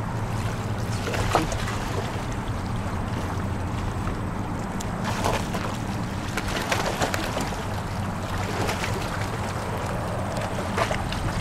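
Choppy bay water lapping and sloshing against a rocky shore, with scattered splashes from a dog swimming close in, over a steady low rumble.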